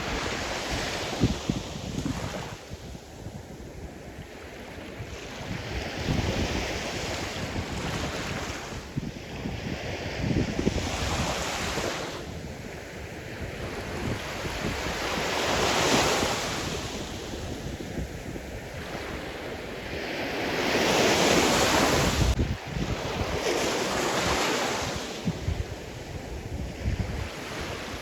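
Sea surf: waves breaking and washing up the shore, surging louder every few seconds with the biggest swell about three quarters of the way through, and wind buffeting the microphone.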